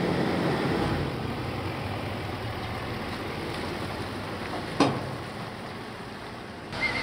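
Chevrolet Silverado HD dually's Duramax turbo-diesel V8 running as the truck pulls away towing a gooseneck trailer, its engine and tyre noise slowly fading. A single sharp click sounds about five seconds in.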